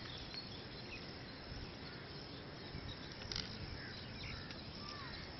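Faint outdoor park ambience: a steady background hush with a few scattered bird chirps.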